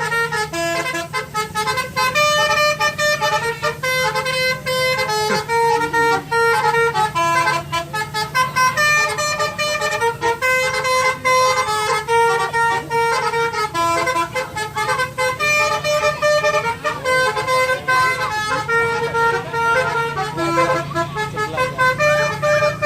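A tour bus's basuri telolet horn, a multi-tone musical horn, playing a tune: a continuous run of held notes that change pitch one after another, over a steady low hum.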